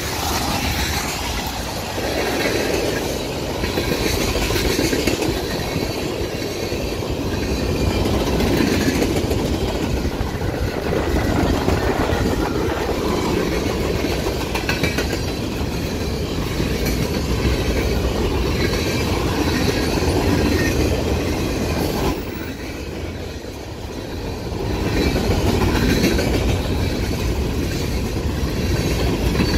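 Freight train cars rolling past close by: the steady noise of steel wheels running on the rails, which dips for a couple of seconds near the end.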